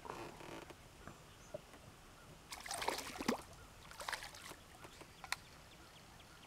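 A hooked fish splashing and thrashing at the water surface beside a small boat, in two bursts, the stronger about two and a half seconds in and a shorter one about a second later.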